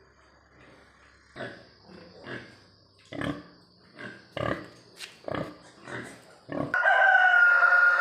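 Pigs grunting in a series of short grunts, then a rooster crowing loudly in one long call near the end.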